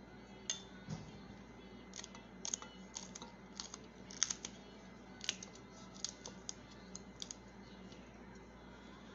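Irregular sharp clicks and taps, about two a second and often in quick clusters. They come from hands breaking green chilies and working them into a small glass chopper bowl of coriander.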